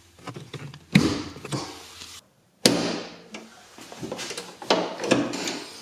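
Ford F-150 hood being opened: a sharp clunk about a second in as the hood release lever under the dash is pulled and the latch pops, then after a break another sharp clunk and several smaller knocks and rattles as the secondary latch under the grille is released and the hood lifted.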